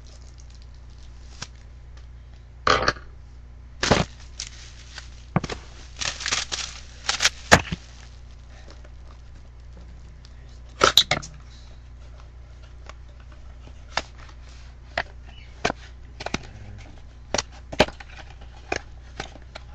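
Packaging of a trading-card box set being opened and handled: crinkling, tearing and rustling with scattered sharp clicks, busiest in the first half.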